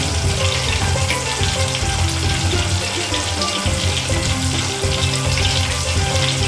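Battered orange segments deep-frying in hot oil in a small steel bowl, sizzling and crackling steadily.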